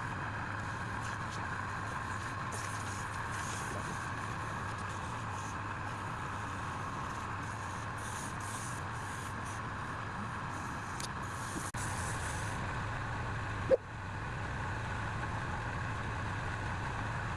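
Wood lathe running with a steady hum, with hissy stretches where the tool cuts, and one sharp knock near the end.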